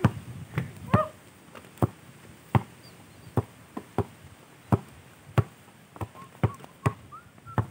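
Basketball being dribbled on a bare dirt court: a steady run of single bounces, about one and a half a second.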